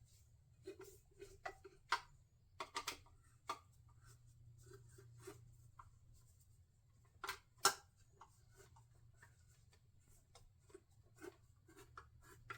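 Scattered light clicks and knocks of small parts and tools being handled, two sharper knocks about three-quarters of the way through, over a faint steady low hum.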